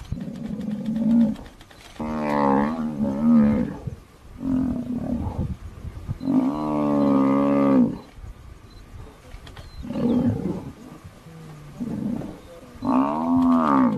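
A string of loud, drawn-out animal calls from a buffalo being pulled down by lionesses. Several calls follow one another, most of them rising and then falling in pitch.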